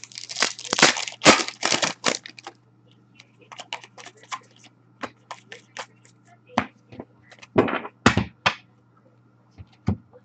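Upper Deck hockey trading cards being flipped through by hand: a quick run of crisp card snaps and flicks over the first couple of seconds, then scattered flicks with a few louder snaps near the end.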